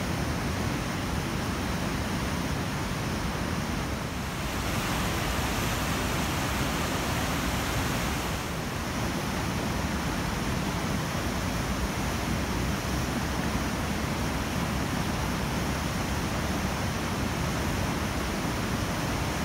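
The swollen, muddy Katsura River in spate, its white water rushing with a steady, even noise that grows a little brighter for a few seconds about a quarter of the way in.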